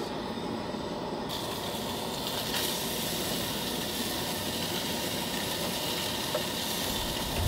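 Propane camp stove burner running with a steady rush; a little over a second in, a higher hiss sets in and holds: salmon starting to sizzle in the hot pan.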